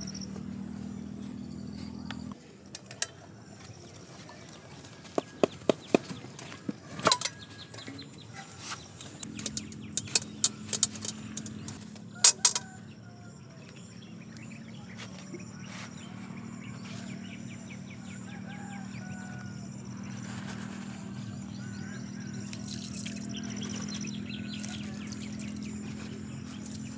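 Birds chirping, with a run of sharp clicks and knocks between about three and thirteen seconds in, over a low steady hum.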